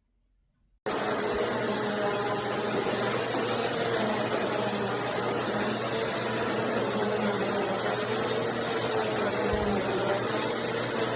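Bissell CleanView Swivel Pet Reach upright vacuum cleaner running steadily: motor and airflow noise with a high whine on top. It cuts in abruptly about a second in, after near silence.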